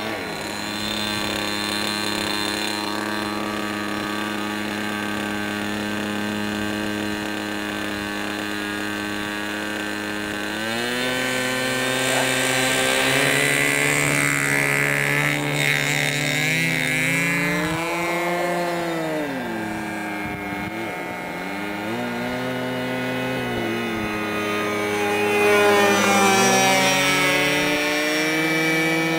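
Small glow or gas engine of a radio-controlled model aircraft running in flight. Its pitch holds steady at first, then rises and falls repeatedly with throttle changes and passes overhead.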